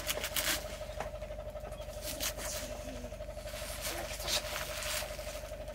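Leafy greens being cut with a knife and handled over a metal pot: soft rustling of leaves with a few crisp snaps or cuts scattered through, over a steady low hum.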